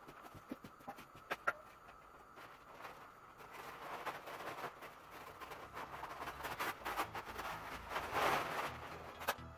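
Plastic vapour-barrier film crinkling and rustling as it is handled and pressed up against the wall, building up through the second half. A few sharp clicks come in the first two seconds, and one more near the end.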